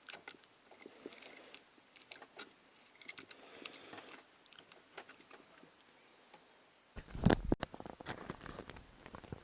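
Scattered small clicks and light handling noises, then a louder knock with a low rumble about seven seconds in, followed by a few softer clicks.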